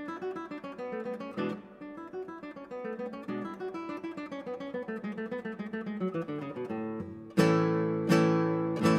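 Background music on acoustic guitar: a quick run of plucked notes, then loud strummed chords near the end.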